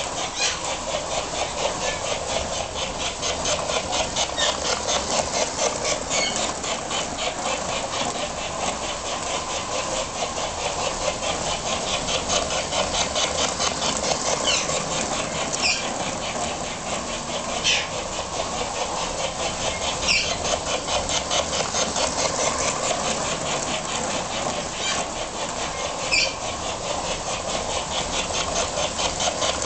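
Liberty Lines 600E Hudson model steam locomotive running on its track: a steady, rapid mechanical clatter of motor, wheels and its sound unit. A few brief high-pitched squeals, spread through the second half.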